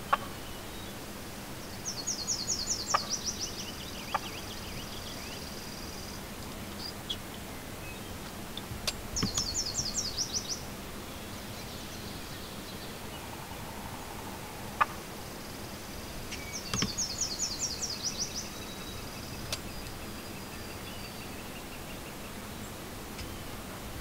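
A small songbird singing three times, each song a quick run of high, sweeping notes about a second long that ends in a short trill. A few sharp clicks fall in between.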